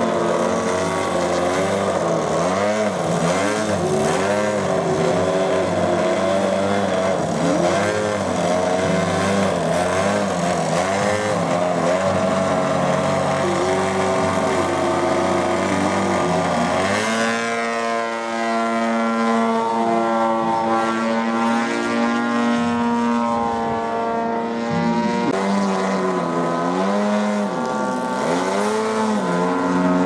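Engine and propeller of a giant-scale radio-controlled aerobatic airplane, its throttle rising and falling over and over as it hangs nose-up in a low hover. About 17 seconds in the sound changes abruptly, then keeps wavering in pitch as the plane flies.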